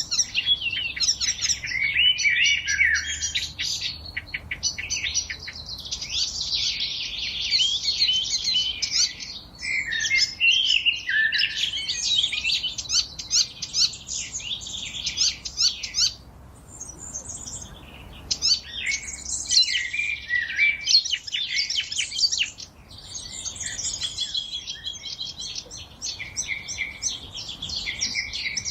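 A chorus of several songbirds singing and chirping at once, dense overlapping high trills and twitters, with brief thinner stretches about two thirds of the way in.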